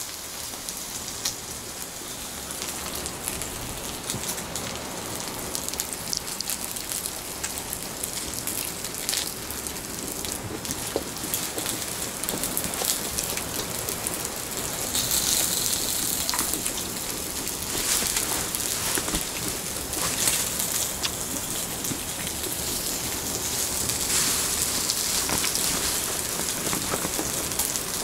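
Strips of meat sizzling on a griddle over a portable gas stove: a steady hiss dotted with small crackles and pops, swelling louder about halfway through and again near the end.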